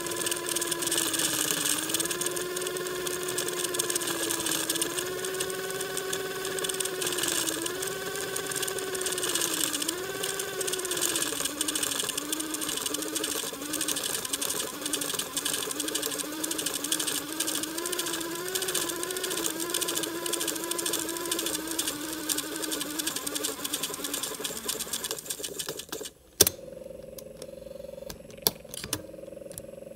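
Grundig CB 100/E cassette tape drive fast-winding an opened cassette: a motor whine that wavers up and down in pitch, the wavers coming quicker as it goes. About 26 seconds in the winding stops with a loud click, leaving a quieter steady hum and a couple more clicks.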